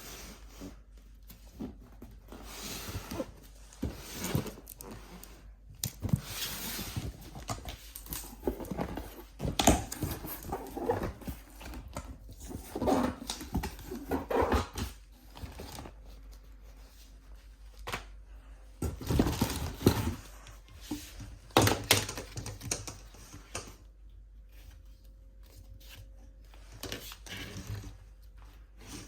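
Boxed vacuum cleaner being unpacked by hand: irregular rustling of packaging with scattered knocks and thuds, the loudest about ten seconds in and again around twenty seconds in.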